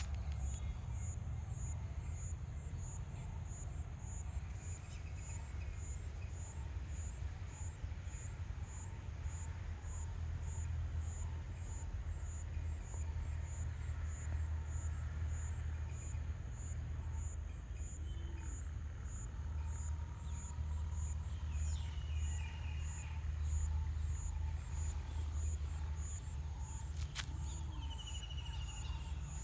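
Outdoor ambience of insects: a steady high-pitched drone with faint regular chirps a little more than once a second, over a continuous low rumble. Two short high bird calls come about two-thirds of the way in and again near the end.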